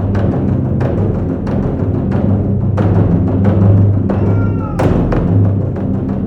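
Music with drums and percussion over a steady low bass, with repeated sharp drum strikes.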